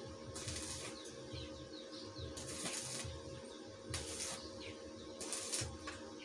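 Short bursts of electric arc-welding hiss on a stainless tubular window grill, about four in all, each under half a second, as with tack welds from an inverter welder. Small birds chirp in the background.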